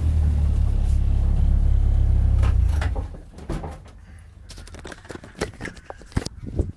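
BMW Compact race car's engine running low and steady, heard from inside the cabin, then switched off about three seconds in. After that come scattered clicks and knocks.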